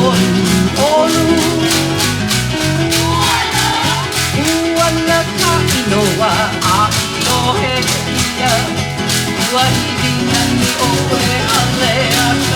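Hawaiian song playing for a hula dance: a voice singing over strummed guitar, with a steady beat.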